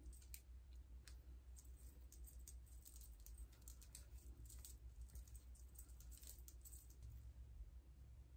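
Near silence: faint scattered light clicks and rustles from hands and beaded bracelets working through locs, over a low steady hum.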